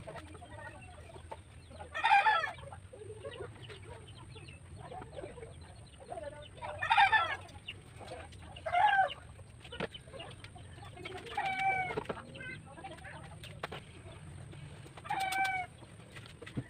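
Chickens calling nearby, with a rooster crowing: five loud calls spread through, the longest lasting about a second. Faint knocks of a plywood backrest being handled and clamped against a steel chair frame come between them.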